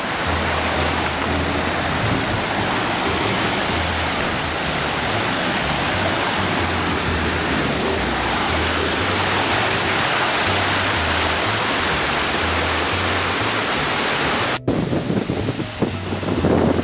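Steady, loud rush of water with music's low bass notes under it. About two seconds before the end it cuts suddenly to gusty wind buffeting the microphone.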